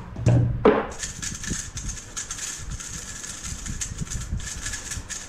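3x3 plastic speedcubes turned fast by hand: a dense run of quick clicks and clatter from the twisting layers. It follows a brief loud sound with a falling pitch in the first second.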